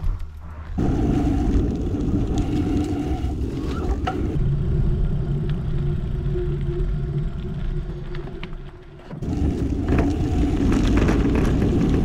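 Mountain bike riding on dirt and gravel trails: steady low rumble of wind buffeting the bike-mounted camera's microphone along with the tyres rolling over the ground. The sound changes abruptly three times as one riding clip gives way to another.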